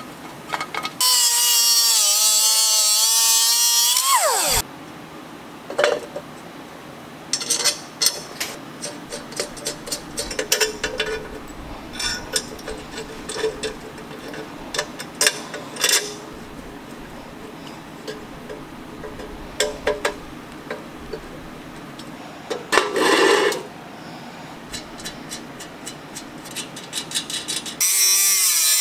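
Small grinder with a cutoff wheel whining as it cuts through steel bolt ends, about a second in for some three seconds and again near the end. Between the cuts come scattered clinks and ticks of bolts, nuts and a wrench as the grill parts are bolted together.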